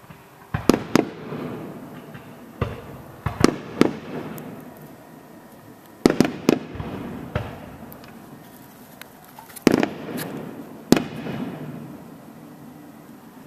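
Fireworks display going off: groups of sharp bangs every few seconds, each cluster trailing off in a fading rumble.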